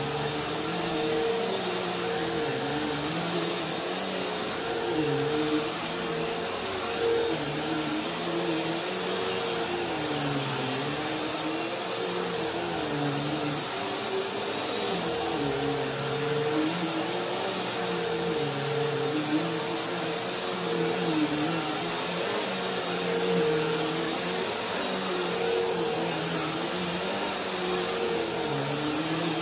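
Bissell upright vacuum cleaner running on a thick rug, with a steady high whine over its motor hum. Its pitch dips and rises every second or two as it is pushed and pulled over the pile.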